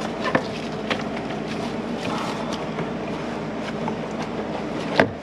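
Plastic engine-bay trim and clips being handled and pried loose: a few light clicks and knocks, the loudest a sharp snap about five seconds in, over a steady mechanical hum.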